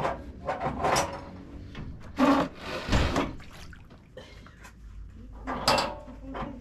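Wet dreadlocks being squeezed and wrung out over a basin of water, in several short splashing, rubbing bursts: at the start, about a second in, twice around two to three seconds in, and again near the end.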